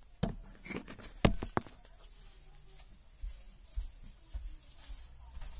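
A few sharp clicks and knocks in the first second and a half, then soft low thumps: phone handling noise and footsteps.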